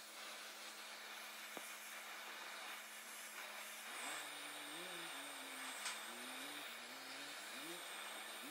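Oxy-acetylene torch flame hissing steadily as it is played on a steel bore. From about four seconds in, a low tone wavers up and down in pitch over the hiss.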